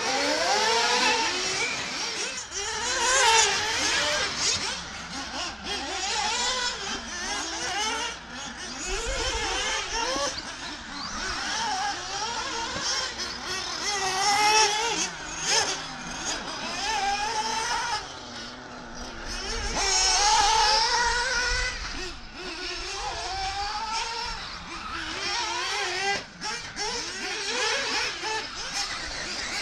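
Several 1/8-scale nitro (glow-plug) RC buggy engines revving up and dropping back as the cars accelerate and brake. Their high-pitched notes overlap, rising and falling continually.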